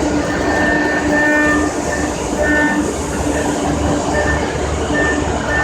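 CNC engraving milling machine cutting metal: a loud, steady machining noise with a held low hum and a higher whine that breaks in and out as the cutter works.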